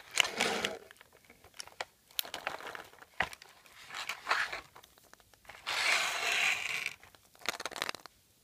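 Foil wrappers of Kinder Surprise chocolate eggs and their plastic tray crinkling and rustling as the eggs are handled and one is pulled out. The crinkling comes in several bursts with small clicks between; the longest burst is about six seconds in.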